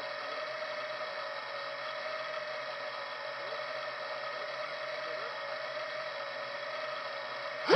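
Racing quadcopter's brushless motors idling with a steady whine, armed but not yet throttled up.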